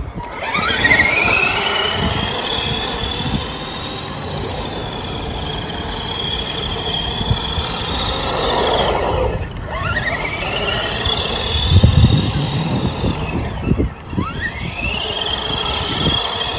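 RC monster truck's electric drive motor whining up in pitch as the truck accelerates hard across asphalt, three times, each run settling into a high steady whine before the throttle is let off, with tyre noise throughout. A loud low rumble comes about twelve seconds in.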